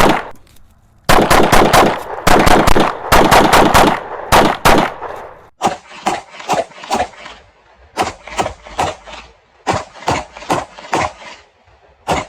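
Rapid 9mm pistol fire: quick strings of shots for the first few seconds, then fainter, duller shots in short clusters of three or four.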